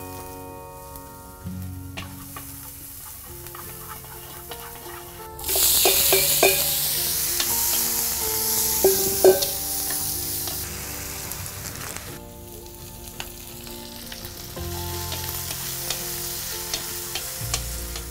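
Stir-frying in a wok: a low sizzle of minced shallot and chilli in oil, then a sudden loud burst of sizzling about five seconds in as pieces of pork are frying, with clicks and scrapes of the spatula against the wok. The sizzling eases off again a little after halfway.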